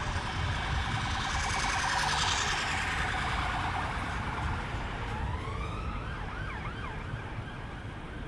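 Busy city-centre road traffic, loudest in the first few seconds as a vehicle passes close, then a distant emergency-vehicle siren wailing and sweeping up and down in pitch over the traffic hum in the second half.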